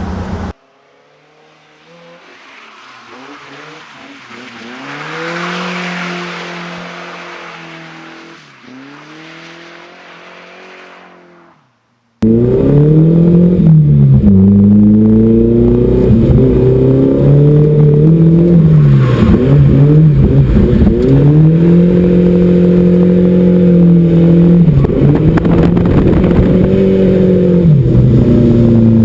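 Non-turbo Volvo four-cylinder drift car revving up and down as it drifts, first heard at a distance, swelling as it comes by and fading away, then, after an abrupt cut about twelve seconds in, heard up close and loud, its revs rising and dropping again and again.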